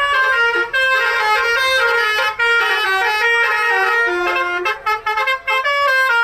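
A bus's Basuri "telolet" multi-tone air horn playing a melody. Several horn notes sound at once and step quickly from pitch to pitch, with a few short breaks near the end.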